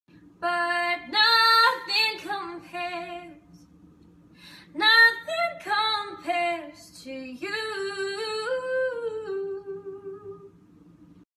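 A woman singing unaccompanied, two phrases with a short pause between them, the second ending on a long held note that fades.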